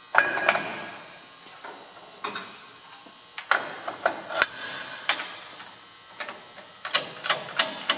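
Metal parts of a hammer union grinder's nut fixture (base plate, union wing nut and top plate) clinking and knocking as they are set onto the spindle, with one loud ringing clank midway. Near the end comes a run of quick, even metallic clicks, about three a second, as the parts are turned by hand.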